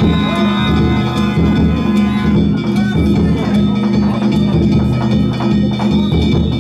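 Danjiri festival music played on the float: taiko drum and small hand gongs struck in a steady rhythm, with the gongs' ringing tones held between strikes and voices of the crowd mixed in.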